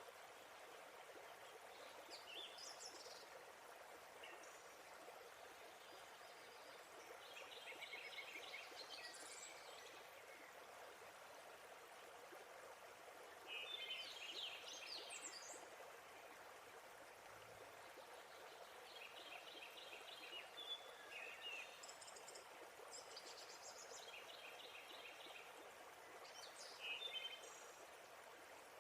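Faint, steady rush of a waterfall, with birds chirping and trilling at intervals over it, several calls made of quick repeated notes.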